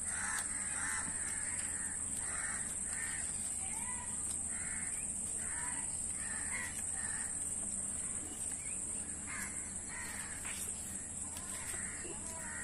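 Crows cawing over and over, one or two short caws a second, over a steady high-pitched hiss.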